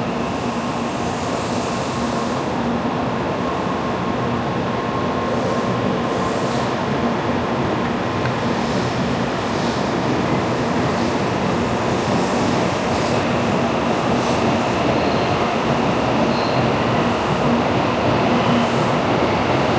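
N700-series Shinkansen train at a station platform: a steady rushing noise with a faint low hum, growing slowly louder.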